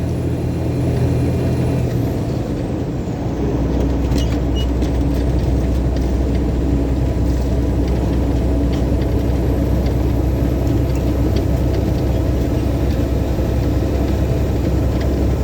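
A semi truck's diesel engine and road noise heard from inside the cab while driving. A few seconds in, the engine note drops to a deeper, steady hum.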